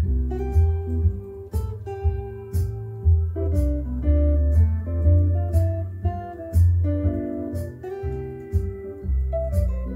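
Stratocaster-style electric guitar playing improvised single-note lead lines over a backing track with bass and a steady drum beat about once a second.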